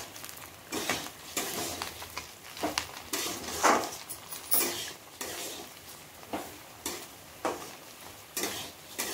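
Oil sizzling in a metal kadai as round kakara pitha dumplings deep-fry. A metal spatula scrapes and stirs against the pan in irregular strokes, about one a second.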